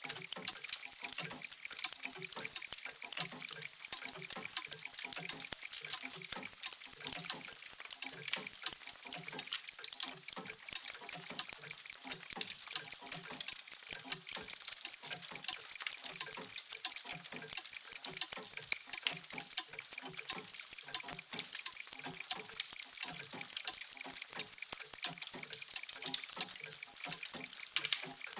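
Many clocks ticking at once, their overlapping ticks making a steady, dense train of sharp clicks.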